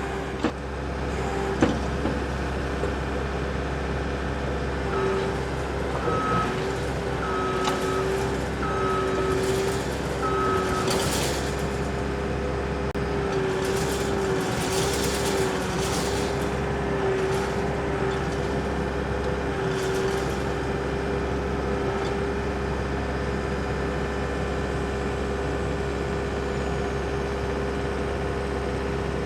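Compact track loader's diesel engine running steadily under work, its backup alarm beeping about five times a second or so apart early in the clip, with a few short clanks around the middle.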